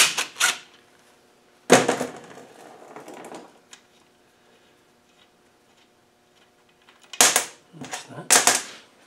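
A cordless drill/driver running in short bursts on a bolt in an aluminium gearbox case, its motor tone fading after the second burst. Near the end, two sharp metallic clacks of hand tools on the case.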